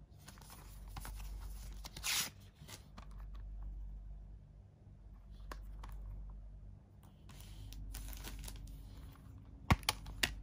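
Blu-ray case sliding out of its cardboard slipcover, a rustling scrape with one louder scuff about two seconds in, then more handling of card and plastic. Near the end the plastic Blu-ray case's clasp snaps open with three sharp clicks.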